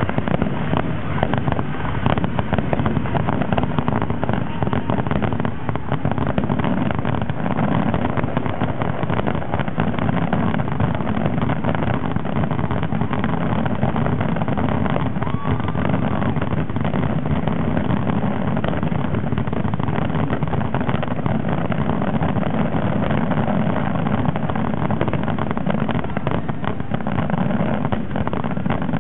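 Fireworks going off in a dense, continuous barrage: a steady low rumble full of crackles and pops, with a brief whistle about halfway through.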